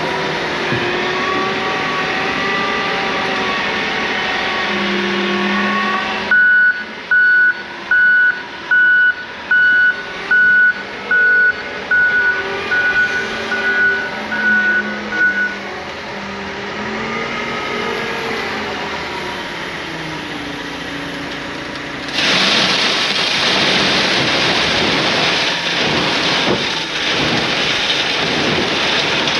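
Loader's diesel engine running and changing speed, then a backup alarm beeping about a dozen times as it reverses. About 22 seconds in, a loud steady rushing starts and keeps on: bulk road salt pouring from the bucket into the truck.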